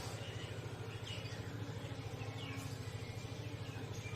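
Low steady electrical-sounding hum with a few faint, short bird chirps in the background.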